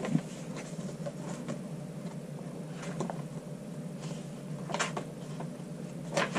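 Pages of a handmade paper journal being turned by hand: a few brief paper rustles and flaps.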